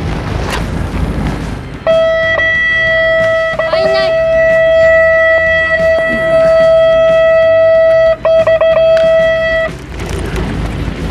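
Electric guitar holding one long, loud note as a music sting. It comes in about two seconds in, wavers briefly, stutters near the end and cuts off just before ten seconds. Wind and boat noise fill the moments before and after it.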